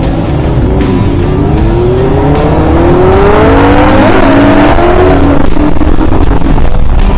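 Loud background music with a steady beat. A rising whine climbs through it from about a second in until about five seconds in.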